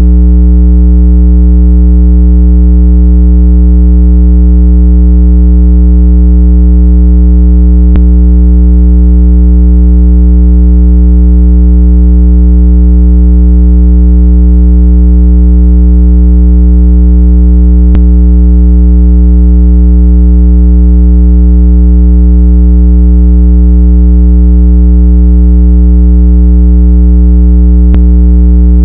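Loud, steady low-pitched electronic tone of a speaker-cleaning sound, played at full volume so the phone speaker's vibration pushes water out of the grille. A faint click comes three times, about ten seconds apart.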